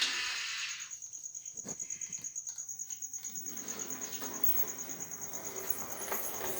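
Model class J17 locomotive running under DCC control on its first run: the decoder-driven motor gives a steady high whine with a fast, even flutter.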